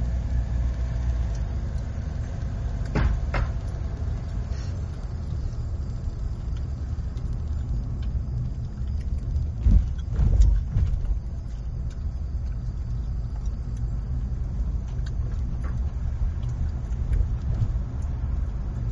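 A car driving steadily on a paved road: a continuous low rumble of engine and tyre noise, with a few brief rattles and clicks, and a heavier thump about ten seconds in, such as a wheel going over a bump.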